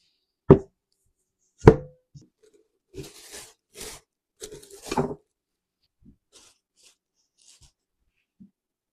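Two loud thuds of kneaded dough being set into a stainless steel bowl, then plastic wrap crinkling as it is pulled over the bowl, followed by a few faint rustles of a kitchen towel laid on top.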